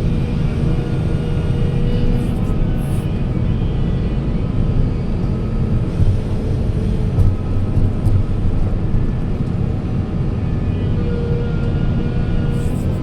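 Heavy earthmoving machine's engine running steadily: a constant low rumble.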